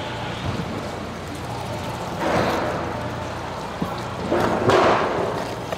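Long knife drawn through a raw tuna loin, two slicing strokes about two seconds apart, each swelling and fading, over a steady low hum.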